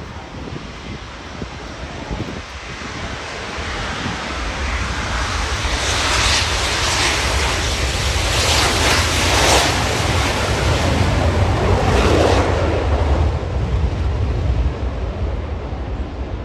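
Jet noise from BAE Hawk T1 aircraft swelling from about four seconds in, loudest through the middle in a few surges, then easing off, with wind buffeting the microphone.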